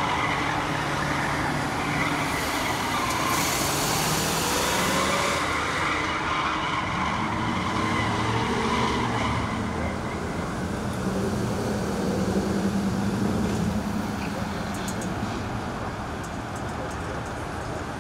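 Several car engines revving and running as cars circle and do donuts, their pitch rising and falling, with a rush of hiss for a couple of seconds near the start; the engine noise thins out toward the end.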